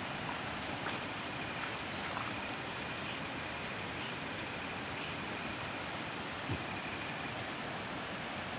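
Night-time outdoor ambience: a steady hiss with insects calling over it, a high chirp pulsing about four times a second and a thin steady high trill. A single soft knock about six and a half seconds in.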